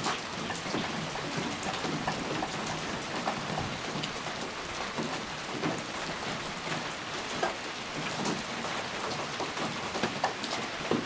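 Steady rain: an even hiss with many distinct raindrops hitting close by at irregular moments.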